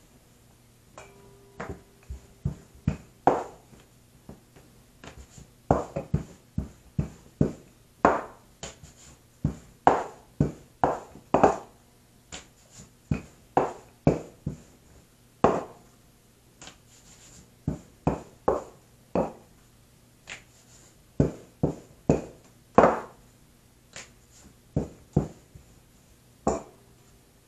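Wooden rolling pin rolling out flour tortilla dough on a wooden board: a sharp wooden knock with each back-and-forth stroke, coming irregularly about one or two a second, with a faint low hum underneath.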